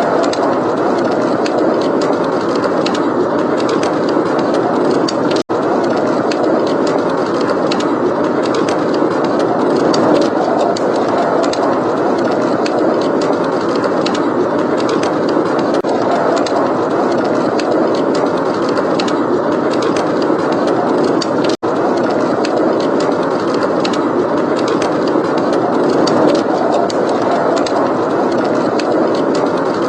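Steady blizzard wind blowing with a wood fire crackling faintly underneath in small scattered pops. The sound cuts out for an instant twice.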